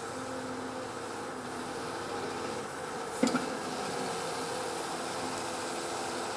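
Cat 390F hydraulic excavator's diesel engine running steadily while the boom lifts and the machine swings, with one sharp metallic clank about three seconds in.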